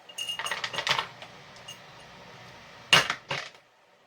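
Clicks and knocks of a plastic manual onion chopper being handled: a quick run of clicks in the first second, then two sharp knocks about three seconds in.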